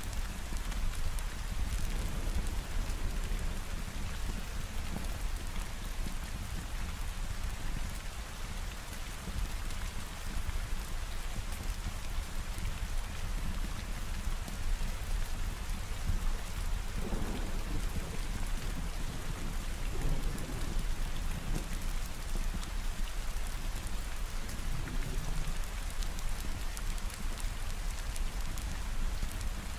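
Steady heavy rain falling, with a low rumble of thunder swelling about two-thirds of the way through.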